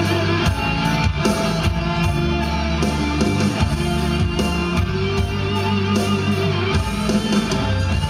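Instrumental passage of a recorded song: a steady beat under sustained low bass notes and held melodic tones, with no singing.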